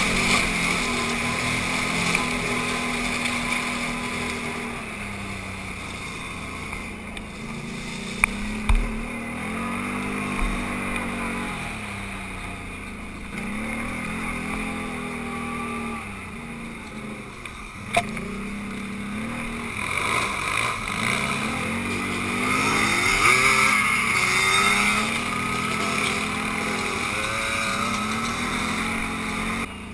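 Quad (ATV) engine heard from on board as it is ridden over a dirt trail, its pitch repeatedly rising and falling back as the throttle opens and closes. There are a few sharp knocks, about eight seconds in and again near the middle.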